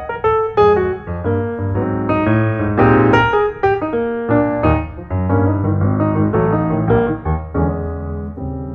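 Background music played on piano: a steady run of notes over a bass line, easing off toward the end.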